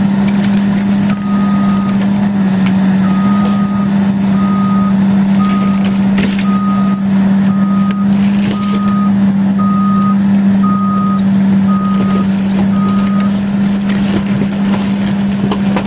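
Komatsu PC400LC excavator's diesel engine running steadily while its bucket crushes a boat hull, with bursts of crackling and crunching, the last near the end. A machine's reversing alarm beeps about once a second from about a second in, stopping a few seconds before the end.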